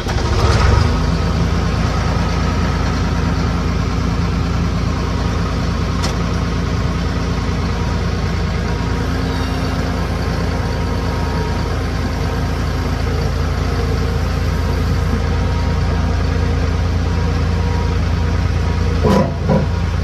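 New Holland skid steer engine catching right at the start and then running steadily.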